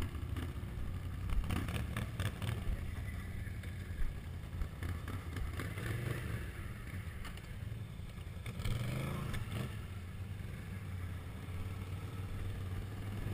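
Quad bike (ATV) engines running at low revs, a steady low hum, with a few short knocks and rattles and a brief rise in revs about nine seconds in.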